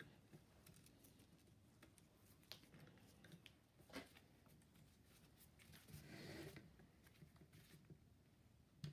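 Near silence, broken by a few faint clicks and, about six seconds in, a soft rustle: small handling sounds from gloved hands working on a wooden chair frame and its hessian-covered back panel.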